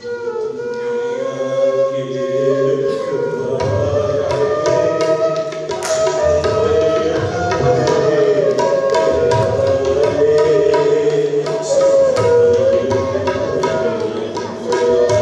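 Instrumental music: a wavering melody line, with regular drum beats joining about three seconds in.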